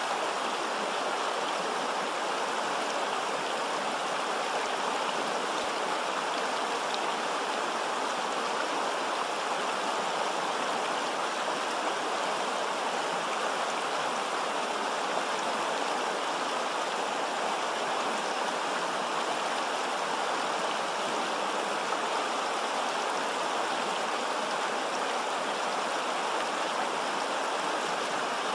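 Shallow, rocky mountain river rushing over stones: a steady, even rush of running water.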